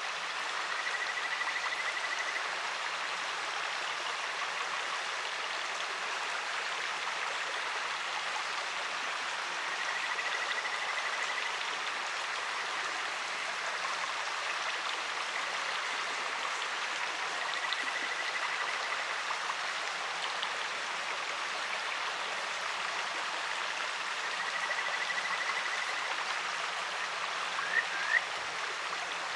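Kajika frogs (Buergeria buergeri) calling over the steady rush of a clear mountain stream. The calls are high trills of quick repeated notes, each about two seconds long, coming about every eight seconds. Two short rising notes come near the end.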